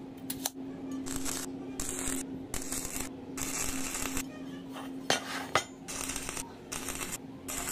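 Metalworking noise: repeated short bursts of hiss that start and stop abruptly, with a couple of sharp metallic clicks about five seconds in, over a steady low hum.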